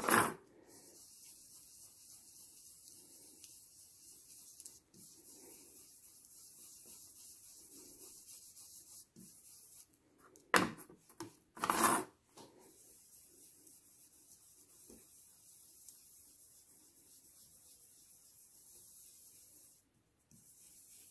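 Blending brush rubbing faintly over cardstock and a vellum doily in light, repeated strokes, ink being brushed through the doily onto the card. Right at the start, and again about ten to twelve seconds in, there is a louder short spell of rubbing as the brush is worked on the ink pad to load it.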